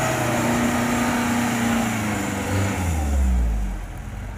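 Off-road jeep's engine running under load as it climbs a steep dirt slope, with a deep low rumble setting in about three seconds in.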